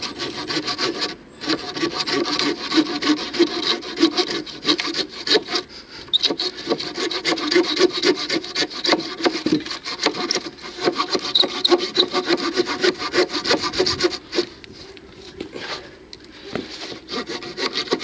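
The saw blade of a Victorinox RangerGrip 130 mm pocket knife cutting through a wooden pole in quick back-and-forth strokes. There is a short pause about a second in and a quieter lull near the end.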